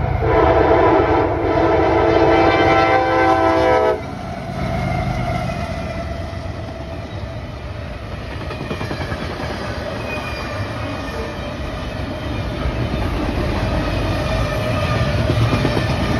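A CSX freight locomotive's air horn sounds a long chord for the grade crossing and cuts off about four seconds in. Then come the steady rumble and clatter of the double-stack container cars' wheels rolling past on the rails.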